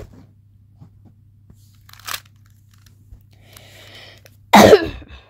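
A smart puzzle cube being turned by hand to set up a case: faint plastic scrapes, then one loud half-second burst of turning noise near the end.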